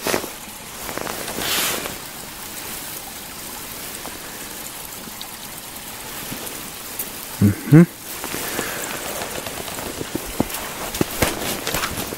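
A steady, even hiss like light rain patter, with two brief vocal sounds about seven and a half seconds in. Near the end come a run of crunching footsteps on a snowy track.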